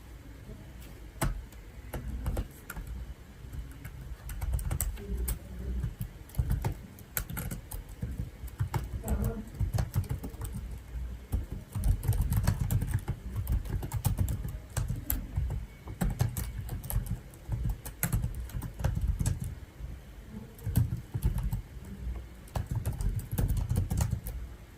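Typing on a computer keyboard: uneven runs of key clicks with short pauses between them, over a dull low thumping.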